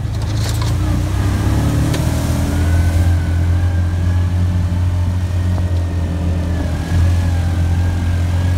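Side-by-side off-road vehicle's engine running steadily as it drives along a gravel track, heard from inside the cab, with a thin high steady whine over the engine hum. About seven seconds in the engine briefly drops and then picks up again.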